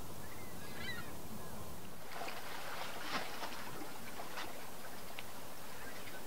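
A few short bird calls over steady wind and water noise, then water sloshing and splashing in irregular bursts, with the odd faint call.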